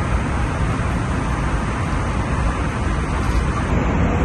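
Steady low rumble of airliner cabin noise in flight, the sound of engines and airflow.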